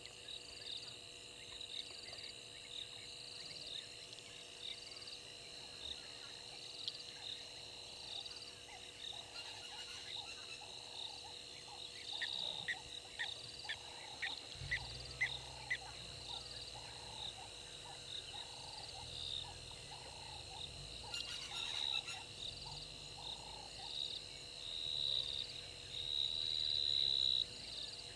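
Evening chorus of insects and frogs: a steady high insect trill with a pulsing chirp repeating about once or twice a second, and a frog croaking over and over, about twice a second, through the middle. A low rumble comes in about halfway through.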